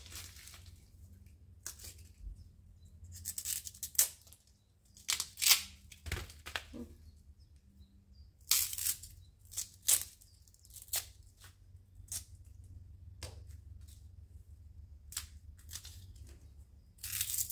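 Fresh bamboo shoots being peeled with a small knife and fingers: about a dozen short, sharp rips and rasps at irregular intervals as the knife slits the husks and the sheaths are torn away. A faint steady low hum runs underneath.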